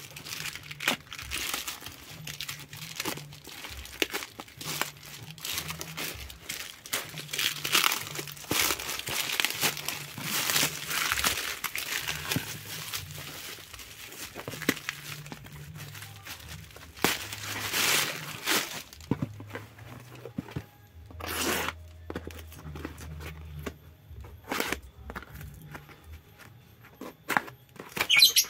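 Plastic parcel packaging crinkling and tearing as it is pulled open and stripped off a box by hand: dense, irregular rustling that thins out after about nineteen seconds to a few sharp crackles.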